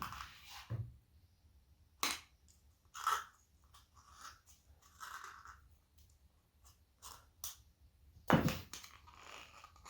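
Thin plastic cup creaking and cracking as a tool is wedged in to pry out a cured silicone mold: scattered sharp clicks and short crackles, the loudest about eight seconds in.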